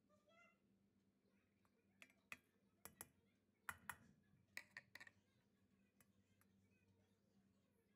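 Faint, sharp clicks and taps, several in quick succession between about two and five seconds in, from a plastic measuring cup knocking against a steel pot as starch and sugar are tipped into milk. A low, steady hum sits underneath.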